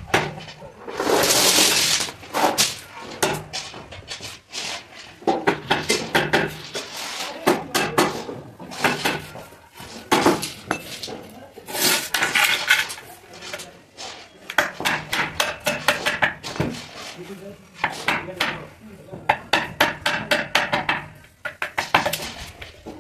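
Hammer striking a wood chisel to cut a joint in a wooden window frame: runs of rapid sharp knocks with short pauses between.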